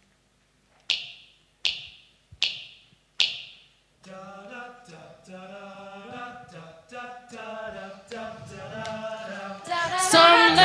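Four short, sharp hissing hits, evenly spaced, then a group of voices singing together a cappella in harmony, swelling louder near the end.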